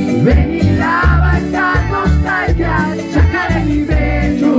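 Live band music with a steady heavy bass beat and a man singing into a microphone.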